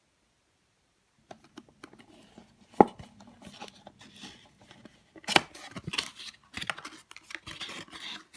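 Blind-box packaging being opened by hand, starting about a second in: a string of sharp clicks, snips and tearing with crinkling plastic, loudest in a snap about three seconds in and a cluster of clicks near the end.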